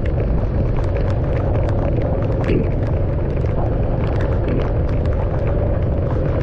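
Rain hitting a moving car: many quick, irregular ticks of raindrops over a steady low rumble of road and engine noise.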